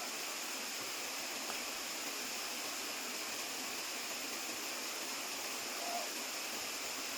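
Waterfall: a steady rush of falling water. A single short high note sounds briefly about six seconds in.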